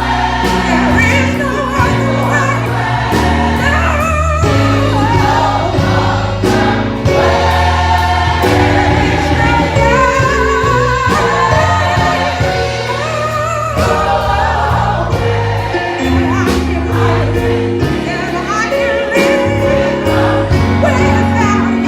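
A choir singing a gospel song in harmony over a bass-heavy accompaniment with a steady beat.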